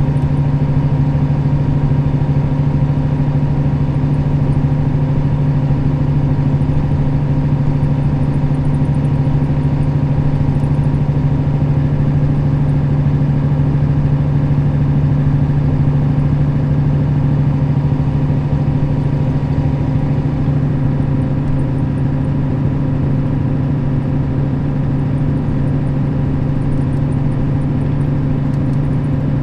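Nissan Diesel KL-RA552RBN city bus's diesel engine running steadily, a continuous low drone with a faint whine above it that eases off slightly about twenty seconds in.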